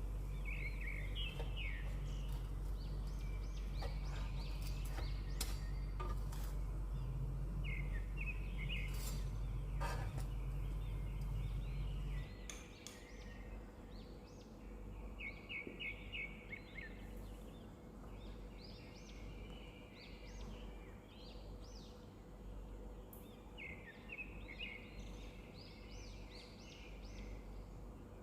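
Small birds chirping in short repeated phrases, over a low steady hum that cuts off about twelve seconds in, with a few scattered clicks before that.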